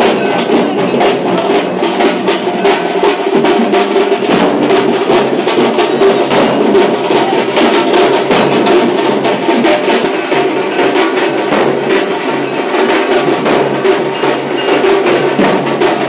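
Dhol and tasha drumming: fast, dense strokes kept up steadily without a break.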